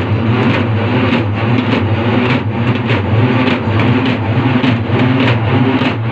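Urumulu folk drums played by a troupe: a loud, rumbling low drone with sharp beats about twice a second.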